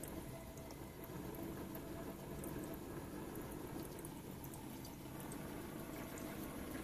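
Propane-fired Warpfive Stirling engine generator running quietly at low propane: a low, steady rumble from the burner and the engine, with a few faint clicks.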